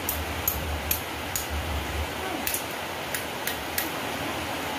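Sharp little clicks of roasted snail shells knocking against a steel bowl and each other as they are picked out, about eight of them with a pause midway, over a steady hiss of rain.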